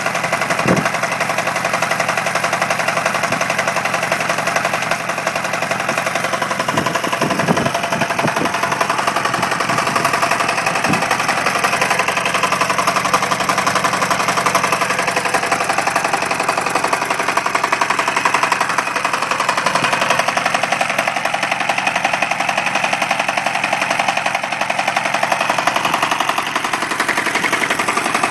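BODE 10 HP single-cylinder air-cooled diesel engine running steadily, with a rapid, even clatter.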